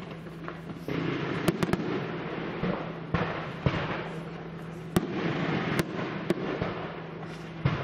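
Aerial fireworks display: shells bursting with sharp bangs, a quick run of three about a second and a half in, then single reports around five, six and six and a half seconds in, over a continuous noisy wash of lower-level firework effects.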